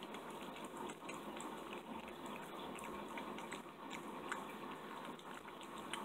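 Blue tortoiseshell cat eating raw chicken thigh and sardines from a bowl: wet smacking and chewing, many small sticky clicks, over a steady low hiss.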